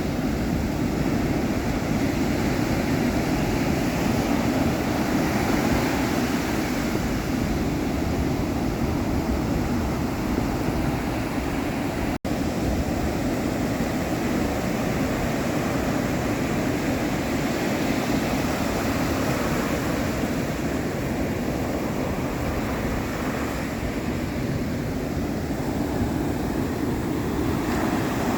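Ocean waves: a steady wash of surf with a low rumble, briefly cutting out for an instant about twelve seconds in.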